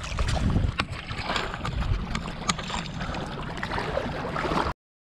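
Water splashing and sloshing around a hand holding a peacock bass in the shallows as it is released, with many small drips and splashes. The sound cuts off suddenly near the end.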